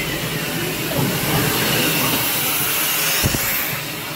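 A ride's smoke-effect machine hissing steadily, its smoke filling the train carriage, with a single low thump about three seconds in.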